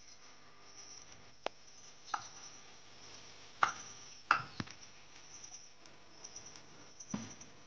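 Knife slicing a banana on a wooden cutting board: about six sharp, irregularly spaced knocks of the blade meeting the board, the loudest two a little past the middle.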